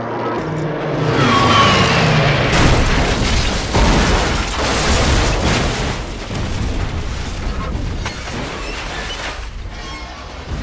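Movie sound effects of a plane crashing: an engine note falling in pitch, then a loud crash and explosion about two and a half seconds in. A long rumbling roar follows and slowly dies away.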